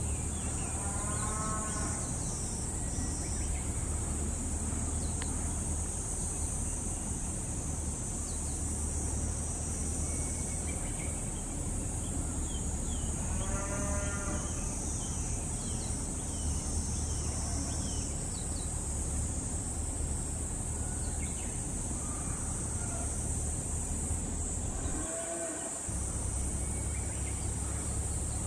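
Steady high-pitched drone of summer insects in the grass over a low rumble. A distant animal call of a few quick repeated notes comes in about a second in, again around the middle, and near the end.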